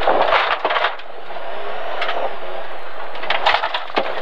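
BMW E30 325i rally car at speed on a special stage, heard from inside the cabin: its straight-six engine running under heavy road and gravel noise, with a few sharp knocks from the car hitting bumps.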